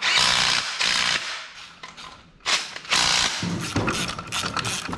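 Cordless impact driver rattling in two bursts of about a second each as it runs bolts into an engine block.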